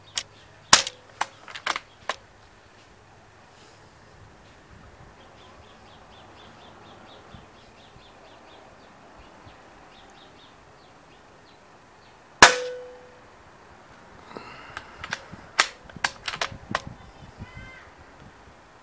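A Benjamin Marauder .22 pre-charged pneumatic air rifle fires once about twelve seconds in: a single sharp crack with a short ring. Small sharp clicks of handling the rifle come near the start and in a cluster a few seconds after the shot.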